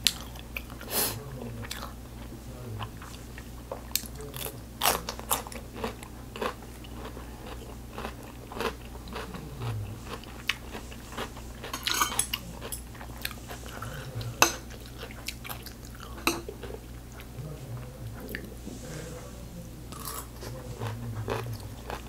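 Close-miked chewing of crisp food, with irregular sharp crunches and wet mouth sounds through the mouthfuls.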